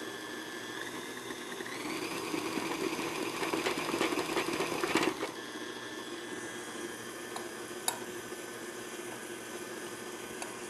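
KitchenAid stand mixer motor running with its paddle beating cake-like cookie batter, a steady motor whine. About two seconds in, the whine rises in pitch and the mixing grows louder for about three seconds, then settles back to a steady run. A single sharp click comes near the end.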